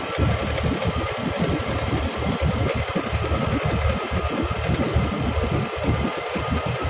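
An engine running steadily under a dense, uneven low rumble, with a faint steady whine above it.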